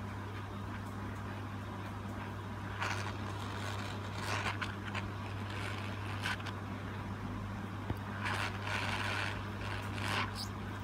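Hot air rework station running: a steady low hum with a hiss of blown air, used to heat and lift chips off an iPhone logic board. The hiss swells briefly several times.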